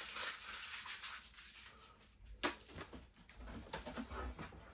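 Toys and packaging being handled in a cardboard box: rustling and scraping, with one sharp click about two and a half seconds in.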